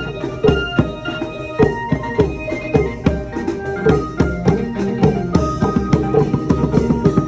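Thai klong yao long-drum ensemble playing a brisk, steady rhythm of drum strokes, with short pitched melody notes over it.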